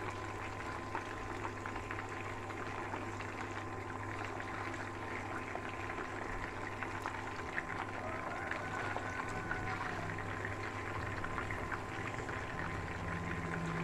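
Raw-mince kebab patties shallow-frying in oil in a pan over a low flame: a steady sizzle with fine crackles of spattering oil.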